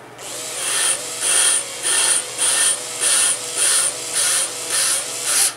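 A cordless drill spins a valve against its seat in a GM LS cylinder head, with valve grinding compound between them. The compound cutting makes a loud, gritty rasp that pulses about twice a second over the drill motor's wavering whine. It stops abruptly just before the end.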